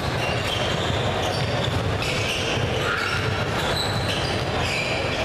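Basketball game sounds on a hardwood gym court: the ball being dribbled and sneakers squeaking in short high chirps, over a steady hall noise.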